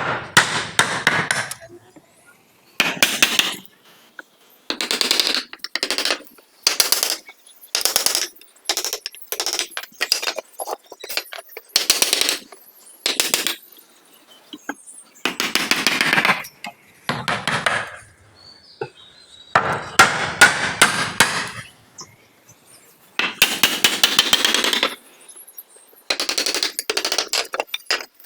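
Wood being cut by hand with an edge tool in repeated strokes: loud noisy bursts, each about a second long, with short irregular pauses between them.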